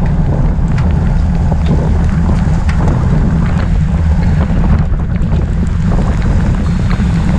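Wind buffeting a bike-mounted action camera's microphone while riding at race speed in the rain: a loud, steady low rumble with a fainter hiss and scattered faint ticks above it.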